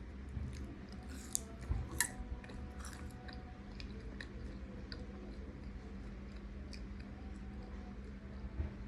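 Close-up chewing and biting of cimol, fried tapioca balls: many small sharp mouth clicks and crunches, loudest between about one and two seconds in.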